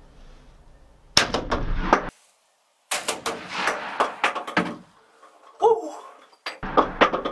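Shotgun blast from inside a small hunting blind about a second in: the shot that drops a tom turkey. After an abrupt cut to silence, more loud bangs and rustling follow.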